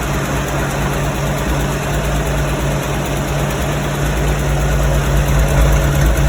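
Air-cooled 1976 Porsche 912E Type 4 2.0-litre flat-four idling steadily, just after its exhaust nuts were tightened to cure an exhaust leak.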